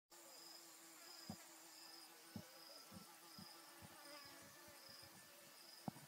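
Faint insects chirping: a high cricket-like chirp repeating evenly, a little more than once a second, with a few soft low thumps.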